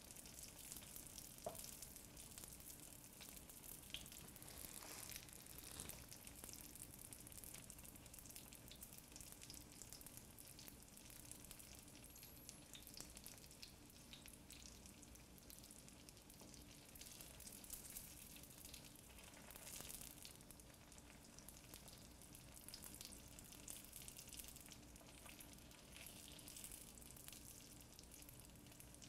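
Spring rolls shallow-frying in hot oil in a sauté pan: a faint, steady sizzle with scattered crackles, a little stronger now and then.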